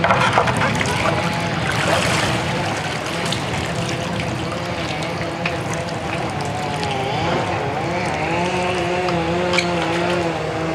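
Sea water splashing and trickling around the mooring ball and the catamaran's bow, louder in the first couple of seconds, over a steady low engine hum.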